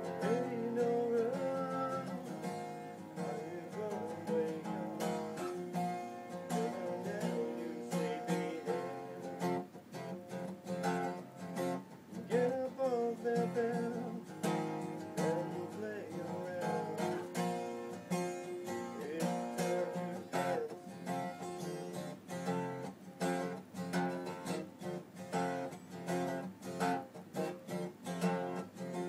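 Acoustic guitar strummed steadily, with a voice singing along in several phrases.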